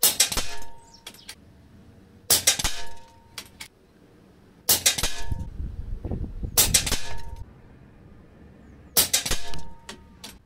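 Five air rifle shots about two seconds apart, each pellet (a heavy JSB Ultra Shock at about 11.6 ft-lb) slamming into the back of a steel compressor-tank pellet trap, which rings briefly with a metallic clang after every hit.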